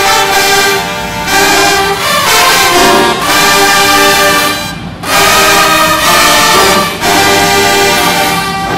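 Brass-heavy marching band playing loudly: sousaphones, trumpets and saxophones in short punchy phrases with brief breaks about every one to two seconds.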